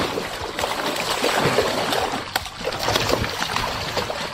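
Water splashing and sloshing as a hoop net's wooden hoops are hauled up out of the river beside a boat, with scattered knocks and rattles of the hoops and mesh.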